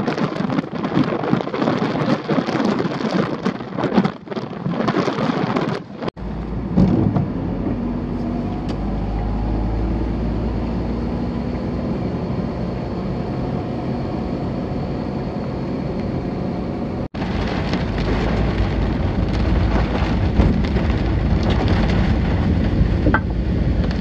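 Strong wind gusting across the microphone over heavy storm surf. After a cut about six seconds in, a steady low rumble of a vehicle driving on wet, flooded roads, with rain and wind hiss rising after another cut partway through.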